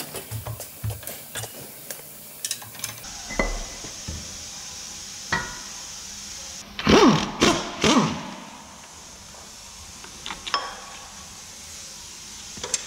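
Metal knocks and clanks of hand tools and engine parts being handled during engine teardown. The loudest clatter comes about seven to eight seconds in.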